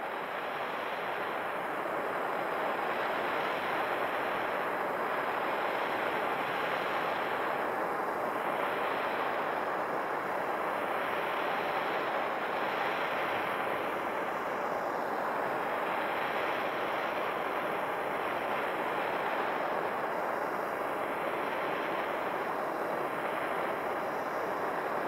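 Bernzomatic hand torch burning steadily, its flame making an even, continuous hiss as it is held against the surface, with slight slow swells in the hiss.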